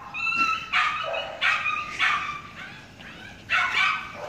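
Small dog barking and yapping, about five high-pitched barks in a row.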